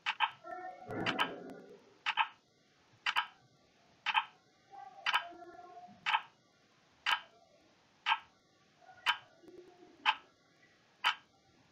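Slideshow countdown-timer sound effect: a clock ticking sharply about once a second, marking off the seconds of a 15-second countdown.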